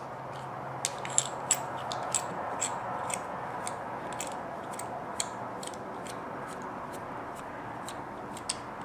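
Small hex driver turning out a bearing-cap screw from an Axial Wraith RC axle housing: a string of light clicks, about two a second, from the tool tip and screw as it is turned and regripped, over a faint steady hiss.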